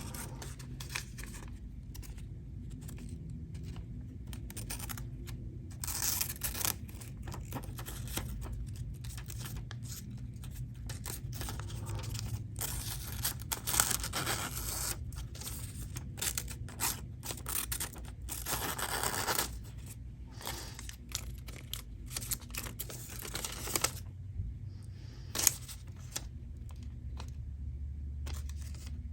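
Freshly sharpened zero-ground tanto blade of a Chris Reeve Umnumzaan knife slicing through thin phone book paper, with repeated paper-cutting strokes. The clean slicing shows a very sharp edge.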